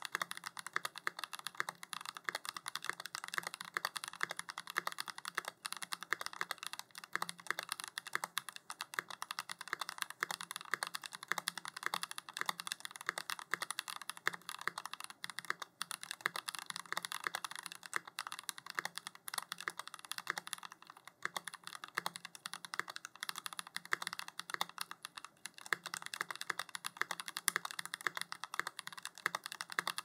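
Continuous typing on a compact mechanical keyboard fitted with Ashkeebs Amethyst tactile switches, lubed and on 63 g springs: an unbroken stream of keystroke clacks, several a second.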